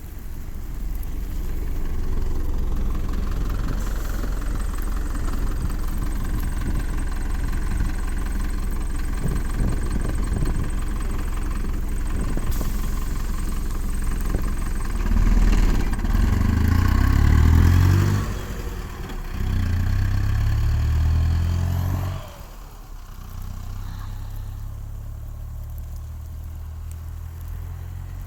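A motor vehicle's engine running, revving up twice around the middle, each time rising in pitch, then settling to a quieter steady hum.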